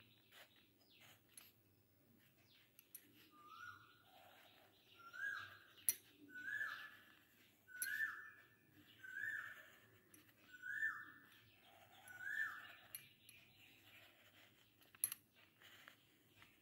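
A bird calling: about seven short, identical notes, each sliding up and then holding, repeated roughly every second and a half through the middle of the stretch. Two sharp clicks stand out, one near the middle and one near the end.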